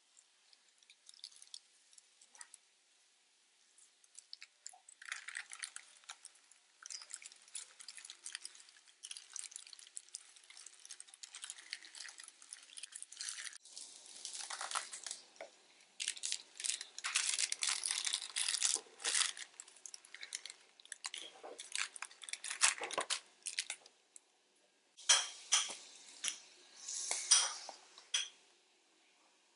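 Crumpled paper rustling and crinkling in short, irregular bursts as stalks of weeds are laid on it and handled, with a few louder crinkles near the end.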